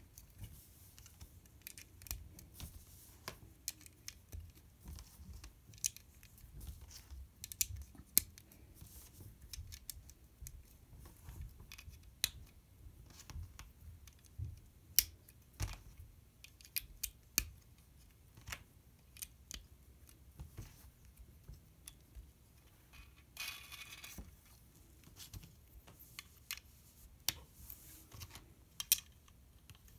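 LEGO bricks being handled and pressed together: irregular sharp plastic clicks and snaps, with a brief rustle about three-quarters of the way through.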